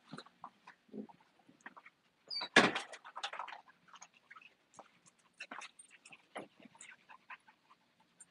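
Three small leashed dogs (a Yorkshire terrier, a maltipoo and a poodle) scuffling about on a concrete floor: scattered clicks and scrapes of claws and leash hardware, with one loud thud about two and a half seconds in.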